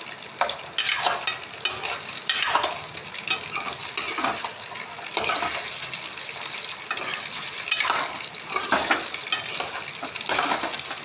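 Food sizzling in a frying pan while a spatula scrapes and stirs it, in irregular strokes about once a second.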